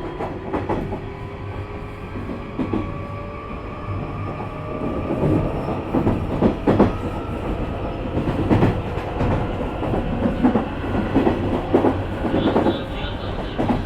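Nishitetsu 3000 series electric train heard from inside a motor car while running: the traction motors' whine slowly rises in pitch as the train gathers speed, over a steady rumble. The wheels clatter over rail joints, with the knocks coming more often in the second half.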